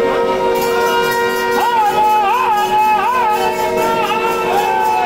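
Traditional music: a wavering, ornamented melody over a steady drone, with a light repeating high tick in the background.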